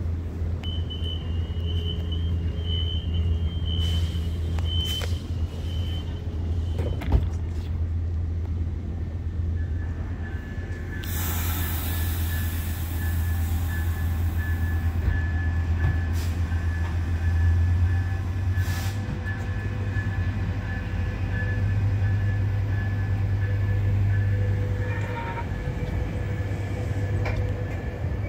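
Metrolink commuter train departing the platform, its engine running with a steady low rumble. A high warning tone sounds for the first several seconds, ending in a knock. About 11 seconds in there is a loud hiss of air as the brakes release, and a second steady tone carries on as the train pulls away.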